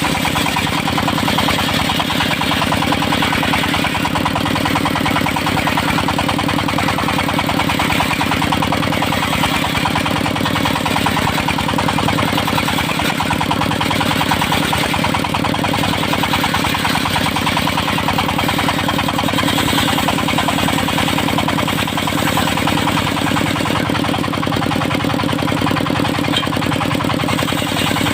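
Engine of a portable circular-saw sawmill running steadily at an even speed, with a fast, regular firing pulse and no change in load.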